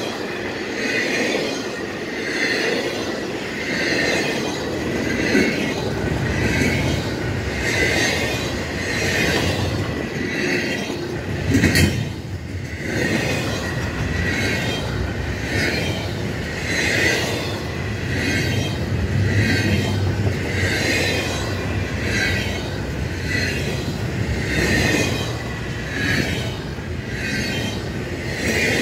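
Intermodal freight cars rolling past, with wheel squeal and clatter pulsing about once a second. There is one sharp bang about twelve seconds in.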